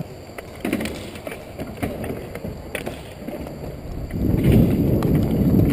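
Wind rushing over a helmet camera's microphone and skating noise as a hockey player skates, with a few stick clicks. It grows loudest about four seconds in as he picks up speed.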